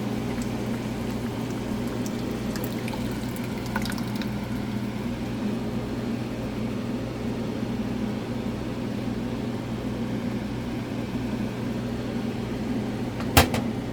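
Tomato pasta sauce being poured from a jar into a cooking pan over a steady hum, with a few light clicks and one sharp knock near the end.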